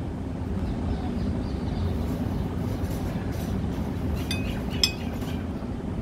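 Steady low outdoor rumble of urban background noise, with two light clinks a half-second apart a little past the middle.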